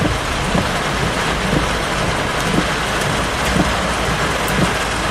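Very heavy rain drumming on a car's roof and windshield, a dense, steady hiss.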